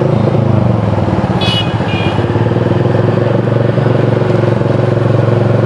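Motorcycle engine running at a steady speed while riding. A short high two-part beep sounds about a second and a half in.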